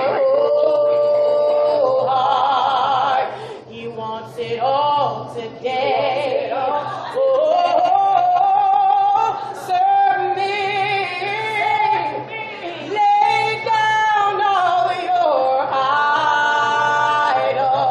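Two women singing a gospel song, their voices winding through melismatic runs with vibrato and holding long notes through the middle. A steady low hum runs underneath.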